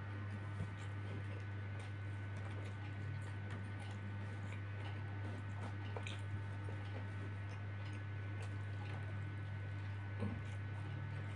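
Faint mouth sounds of chewing a handful of rice eaten with the fingers, with scattered small clicks and a slightly louder one near the end, over a steady low hum.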